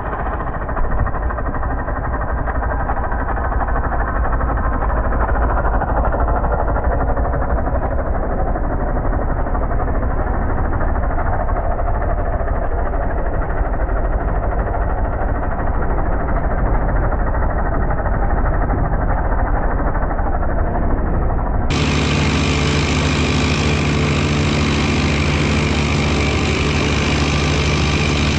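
An engine running steadily. About 22 seconds in, the sound cuts abruptly to a clearer idling engine with a steady low hum.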